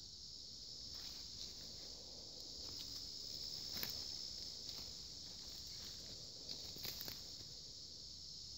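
Steady high-pitched insect chorus, with a few scattered rustles and snaps over it, the loudest about four seconds in.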